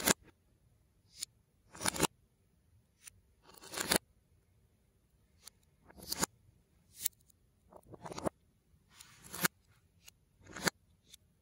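LEGO plastic bricks and plates clicking and rattling as they are picked through and pressed together by hand: about a dozen short scratchy rustles, most ending in a sharp click, at uneven intervals.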